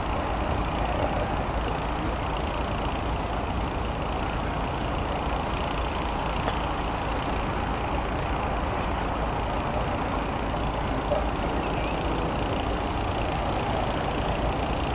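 Steady rumble of vehicle engines running, even and unchanging, with no distinct impacts.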